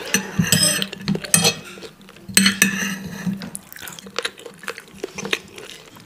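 Metal knife and fork scraping and clinking against a ceramic plate as food is cut and gathered, in an irregular run of sharp clicks and short scrapes.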